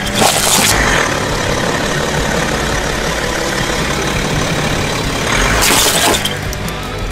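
Plastic toy cars crushed under a slowly rolling BMW tyre on asphalt: two short bursts of cracking and crunching plastic, one right at the start and one about five and a half seconds in, over the steady sound of the car moving.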